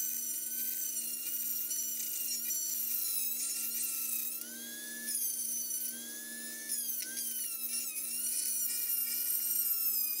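Handheld rotary tool running at high speed with a small bit working rust off the steel head of a cross-pein hammer, a high whine whose pitch sags and recovers as the bit is pressed into the metal. The level drops briefly twice in the middle.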